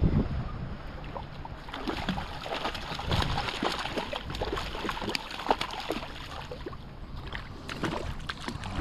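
A hooked fish thrashing at the surface beside a kayak as it is reeled in: a rapid, irregular run of sharp splashes lasting several seconds.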